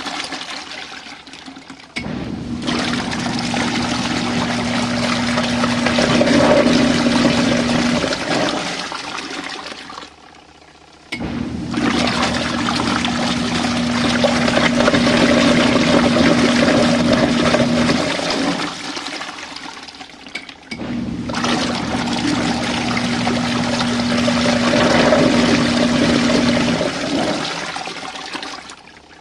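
Small RV washing machine running its wash cycle with water in the tub: a steady motor hum with churning, sloshing water, in three runs of about six to eight seconds that start suddenly and fade out, with short pauses between them.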